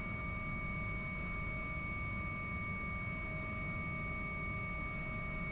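AW139 helicopter at take-off power in the climb-out: a steady low rotor and engine rumble with several steady high whining tones above it.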